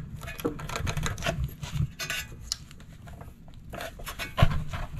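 Hands working around a lawn mower engine near the spark plug: scattered small clicks, taps and rubs of plastic and metal, with one sharper knock near the end.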